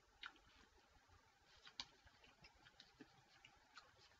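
Near silence with faint, irregular small clicks: mouth sounds of sour lemon gum being chewed.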